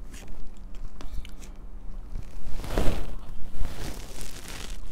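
Close-miked chewing and mouth sounds of someone eating goat biryani, with small clicks and scrapes of a fork in a plastic takeout container; the loudest mouth sound comes about three seconds in.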